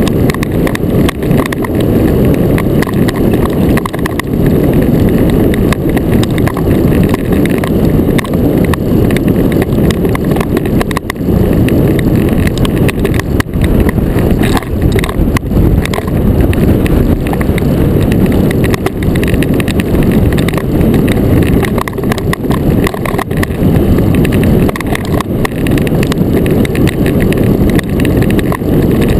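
Iceboat sailing fast over clear lake ice: a loud, steady low rumble of the steel runners on the ice, mixed with wind on the microphone.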